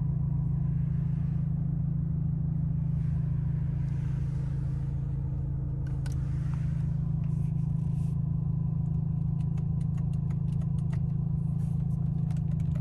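A car's engine running with a steady low drone. A run of light, irregular clicks comes in over the second half.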